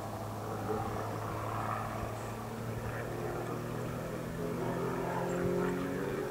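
Aerobatic propeller airplane's engine and propeller droning overhead in flight. The pitch is steady at first, then shifts from about halfway through as the plane manoeuvres.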